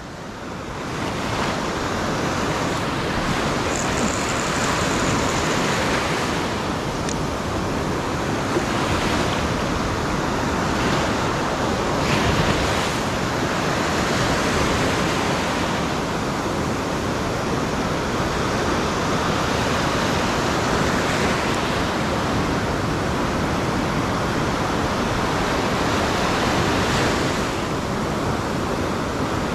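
Steady rushing of sea surf, with wind buffeting the microphone.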